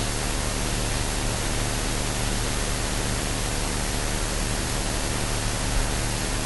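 Steady hiss of an amplified investigation audio recording, the recorder's noise floor, with a faint low hum under it, as played back while listening for EVPs.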